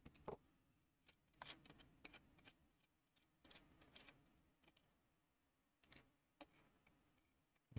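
Near silence with a few faint, irregular clicks and taps from hands handling the wall clock's dial and movement.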